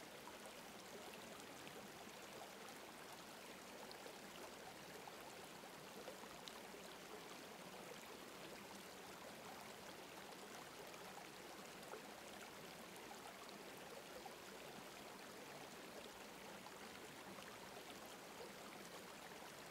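Faint, steady sound of running water, like a stream.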